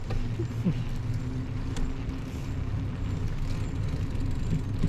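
Steady low rumble of wind and tyre noise while riding a bicycle, with a low hum throughout and a light click about two seconds in.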